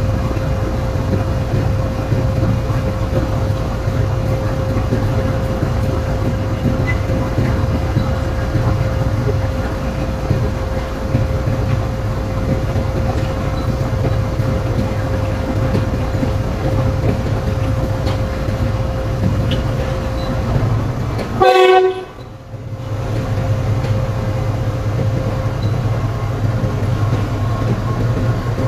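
Diesel locomotive running with a steady low rumble, and one short horn blast about three quarters of the way in.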